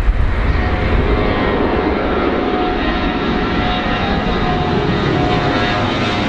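Airplane engines running with a steady, even noise and a faint steady whine through it.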